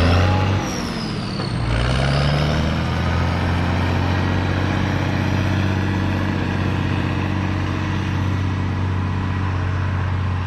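Heavy diesel truck engine running under way. Its speed drops and picks up again in the first two seconds, with a high whine following the engine pitch, then it runs steadily.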